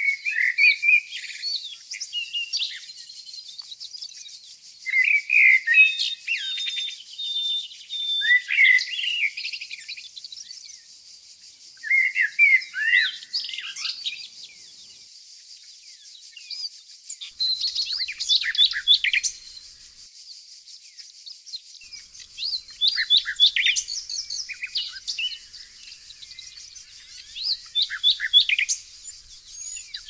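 Songbirds singing: one bird gives short, loud, varied song phrases about every few seconds, over a steady high chorus of distant twittering.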